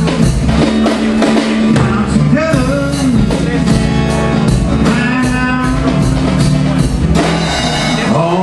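Live acoustic band music: a strummed acoustic guitar with percussion keeping a steady beat, and a voice singing in places.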